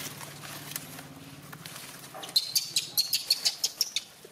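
Baby macaques giving a quick run of short, high-pitched squeaks starting about halfway in, with a steady low hum underneath before them.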